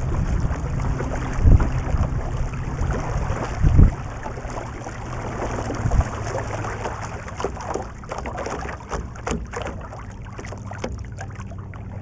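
Kayak paddle strokes: the blades splashing in and dripping water, under wind buffeting the camera's microphone. The low wind thumps are strongest in the first few seconds, and the splashes turn sharper and more frequent later on.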